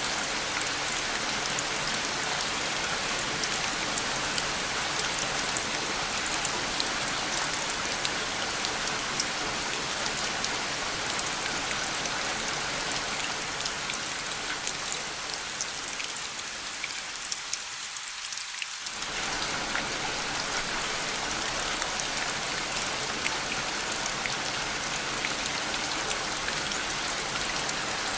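Steady rain falling, an even hiss dotted with the fine patter of individual drops. About two-thirds through, the deeper part of the sound fades away for a few seconds and then comes back suddenly.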